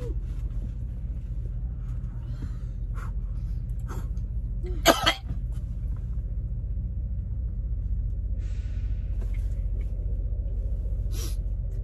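A person coughs once, sharply, about five seconds in, over the steady low rumble of an idling truck engine heard inside the cab.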